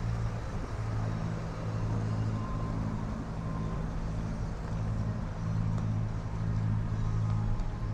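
An engine running steadily, a low even drone.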